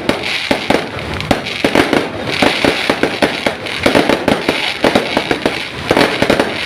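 Fireworks going off continuously: a rapid, irregular barrage of pops and bangs with crackling.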